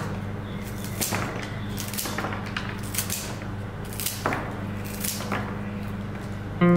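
Floral scissors snipping through the thick bundle of stems of a hand-tied bouquet: about five short crisp cuts roughly a second apart, as the stem ends are trimmed to finish the bouquet. A steady low hum runs underneath.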